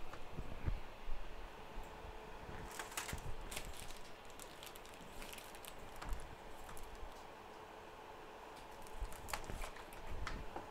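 Irregular light clicks and taps from hand work at a microsoldering bench, over a faint steady hum.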